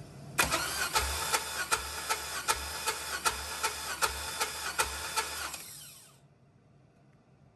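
Starter cranking a 4.8L LS V8 over on a compression test of its final cylinder, with an even, rhythmic chug of compression strokes. It stops a little over five seconds in and winds down. The gauge on this cylinder reads about 145 psi.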